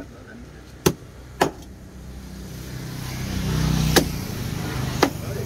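A large knife chopping through a whole fish onto a wooden log chopping block: five sharp strikes at uneven intervals. A passing vehicle's engine rises in the background, loudest about four seconds in.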